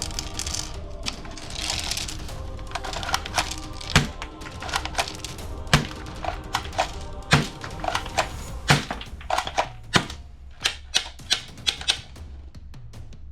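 Toy guns giving a run of sharp, irregular mechanical clicks and snaps, a few louder than the rest and coming quicker near the end, over background music.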